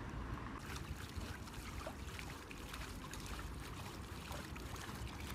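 Small splashes and trickling of water as hands paddle beside a floating inflatable air couch, coming in as many light, irregular ticks from about half a second in, over a steady low rumble.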